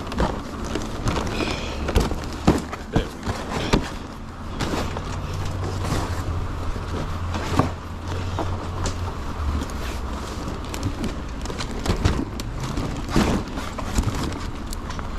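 Repeated knocks and clatter of food cases being handled and moved, over a steady low hum.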